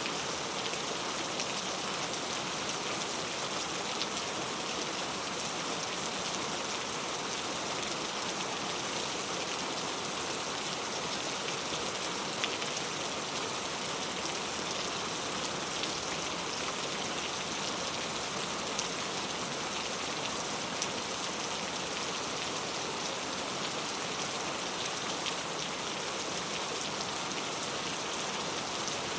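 Steady rain ambience: an even hiss of falling rain with scattered drop ticks, a few of them sharper.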